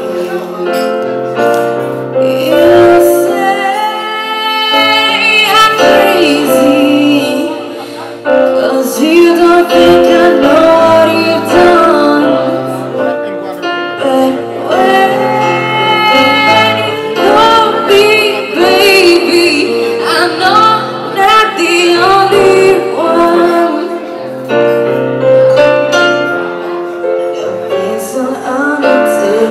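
R&B song with a woman singing lead over keyboards and bass, played by a live band.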